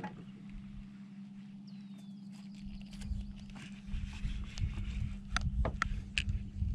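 Handling noise from fishing tackle in a small aluminium boat: a string of sharp clicks and knocks from about four seconds in as hands work the line and baitcasting reel, over a steady low hum.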